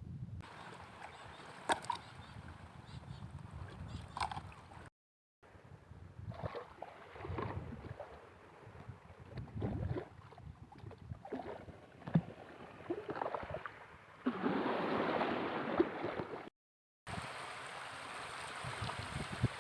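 Shallow seawater sloshing and washing, with scattered small clicks and knocks, and a louder wash of surf for a couple of seconds near the end.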